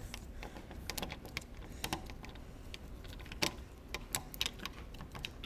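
Phillips screwdriver turning out the screw of a deadbolt thumb turn: irregular small metallic clicks and ticks as the bit works in the screw head and the hand regrips the handle, one sharper click about three and a half seconds in.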